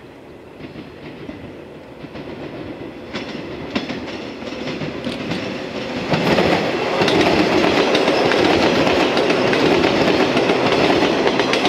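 JR West 115 series electric train (Okayama set A10) approaching and passing close by, its wheels clicking over rail joints. The sound grows steadily louder, and from about six seconds in the cars run alongside loudly with a dense clickety-clack.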